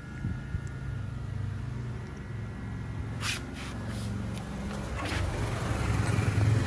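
A motor vehicle engine running with a low, steady rumble that grows louder toward the end, with a few short handling noises about halfway through.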